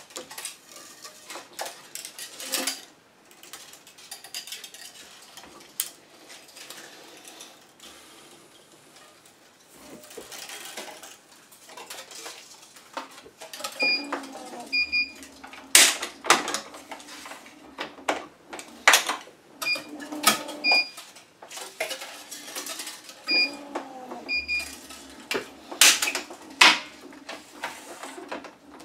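Electronic tennis stringing machine at work: the clicks and clatter of clamps and Gamma Moto string being pulled through the racquet, with short double beeps from the machine and a brief hum of its tensioning head twice in the second half.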